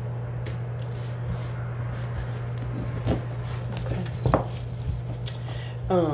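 A deck of tarot cards shuffled by hand: soft rustling of cards sliding over each other, with a few sharp taps of cards against the deck about four to five seconds in, over a steady low hum.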